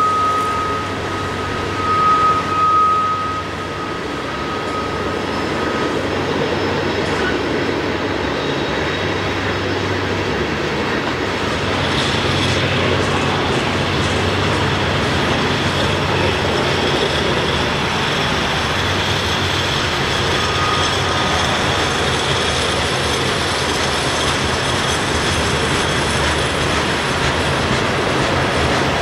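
Loaded coal train of steel hopper cars rolling steadily through a curve, with continuous rail noise and thin, high wheel squeal: one squeal tone for the first few seconds, and a higher one from about twelve seconds in.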